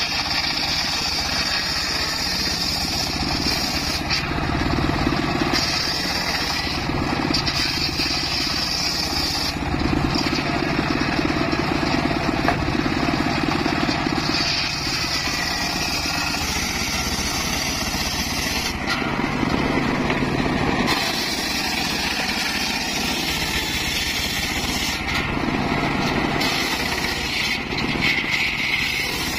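Homemade engine-driven circular saw bench ripping mahogany boards: the engine runs steadily while the blade cuts through the wood. The cutting sound changes every few seconds as each board enters and leaves the blade.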